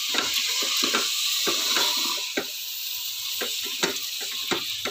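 Soaked rice and lentils sizzling in hot oil and masala in a pressure cooker while being stirred with a ladle, with repeated scrapes and knocks of the ladle against the pan. The sizzle eases a little about halfway through.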